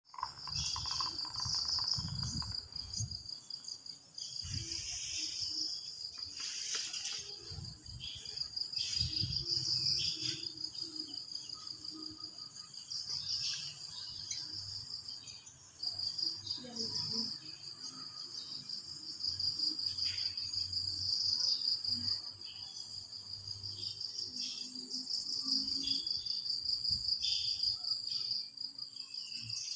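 Insects singing: a continuous high-pitched pulsing trill.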